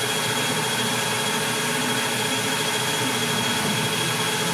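Metal-turning lathe running steadily with its chuck spinning: an even mechanical hum with a faint steady high whine.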